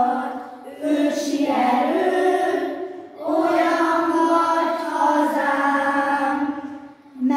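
A group of young schoolchildren singing together in Hungarian, in sung phrases with short breaks for breath about a second in, about three seconds in, and near the end.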